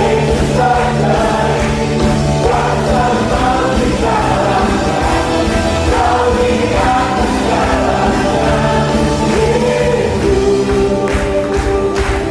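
Choir singing an Indonesian gospel praise song in unison over loud instrumental accompaniment with a steady beat.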